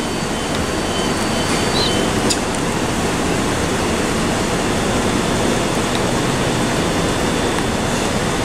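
Steady rushing noise beside parked electric multiple units at a railway platform, growing slightly louder. A brief faint high chirp comes about two seconds in.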